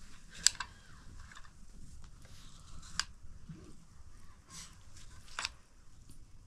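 A metal fork clicking against a plate about three times, a couple of seconds apart, with light rustling.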